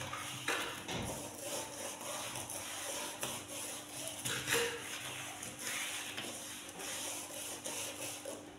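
A sponge pad scrubbing along an aluminium window frame, with repeated back-and-forth rasping strokes about once a second.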